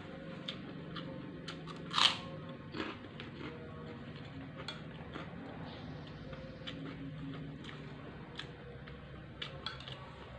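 Close-up eating sounds: crunching and chewing of fried food and krupuk crackers, with small clicks of a metal spoon on a plate. One louder, sharp crunch or clack comes about two seconds in.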